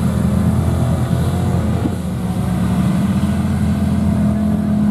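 Engines of a lifted mega mud truck and big-tyred side-by-sides running at low revs, a steady deep hum that swells slightly in the second half.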